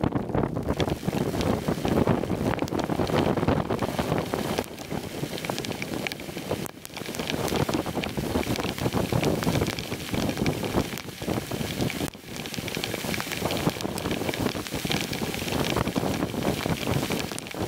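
Sudden heavy downpour: rain falling hard on the sea surface and the boat, with drops striking the camera, mixed with wind buffeting the microphone. The noise stays dense throughout, with two brief lulls.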